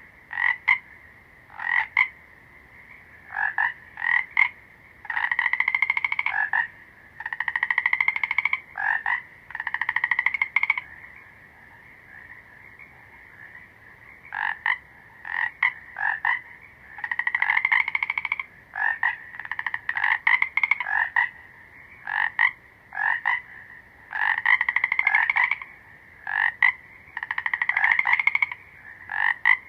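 Frogs croaking: short single calls mixed with longer pulsed croaks of about a second, some rising slightly, repeated irregularly over a steady chorus of other frogs.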